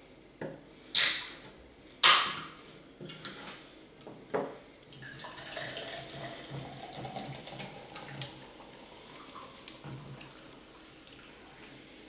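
An aluminium can of Fanta orange soda opened by its pull tab, with two sharp hisses about a second apart, then a knock, then the soda poured into a glass, a steady pouring and fizzing of the carbonated drink that runs on for several seconds.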